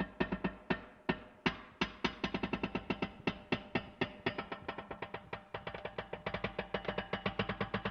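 Metal creaking: a long, irregular run of rapid clicking creaks that bunch together and spread apart, with steady pitched tones ringing through them.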